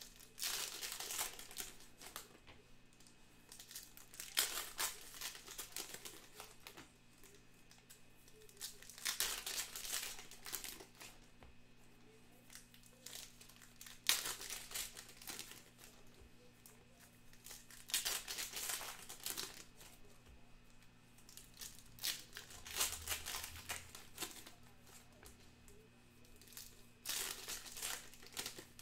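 Foil wrappers of Bowman Sapphire baseball card packs crinkling and tearing as packs are ripped open one after another, seven times, about every four seconds.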